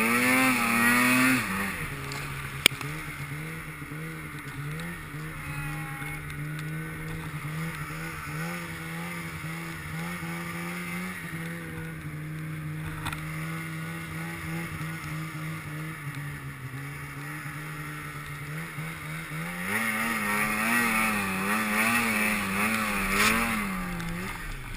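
A Polaris Pro RMK snowmobile's two-stroke engine under the rider. It revs high at first, drops to a steady lower speed about a second in and holds it, then revs high again for a few seconds near the end.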